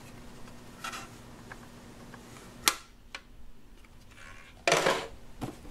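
Plastic toy accessories being handled and set down on a wooden tabletop: one sharp click about halfway through, a few lighter clicks and a brief rustle of plastic near the end.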